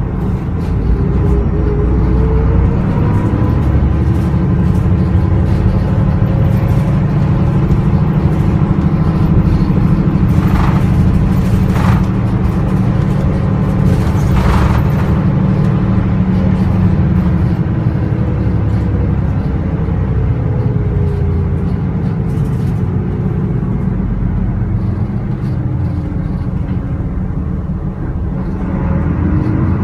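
Isuzu Erga Mio bus's 6HK1 inline-six turbodiesel heard from the rear seats, near the engine, pulling under load over a deep rumble. The engine note rises in the first few seconds, holds steady, eases down in the second half and climbs again near the end. A few short knocks or rattles come about ten to fifteen seconds in.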